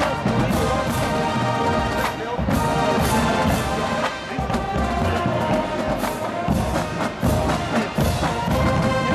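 College marching band playing live: a brass section with sousaphones carrying the tune over a drumline, with regular drum hits.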